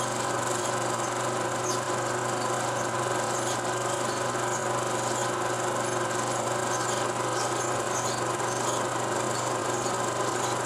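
16 mm film projector running: a steady mechanical whirr with faint, irregular ticks.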